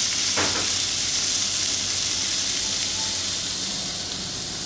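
Sliced fennel, red onion and olives sizzling in hot oil in a sauté pan, a steady high frying hiss as the vegetables brown.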